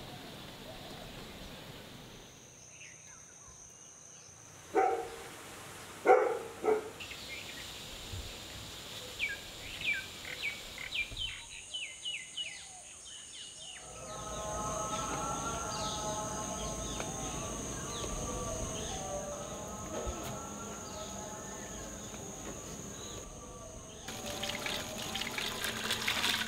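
A few splashes and drips of liquid in a bowl. Then many birds calling over a steady outdoor ambience, and near the end a dense crackle of food being handled in a woven basket.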